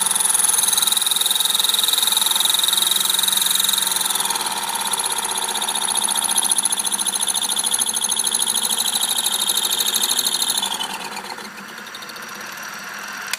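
Small bench lathe's electric motor running steadily, spinning a watch bezel in the chuck. The pitch dips slightly about four seconds in, and near the end the sound drops and slides down in pitch as the lathe slows.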